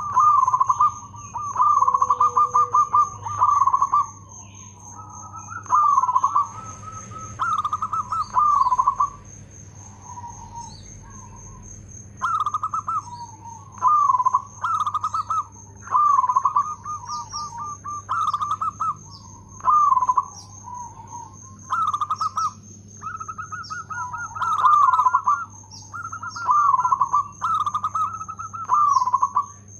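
Zebra dove (perkutut) cooing: a long series of loud, fast-rolling coos on a steady pitch, each under a second, coming in groups of two or three with short pauses between.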